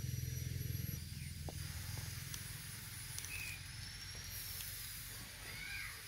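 Outdoor background noise: a steady high hiss, a low rumble that fades about a second in, and a few faint short chirps.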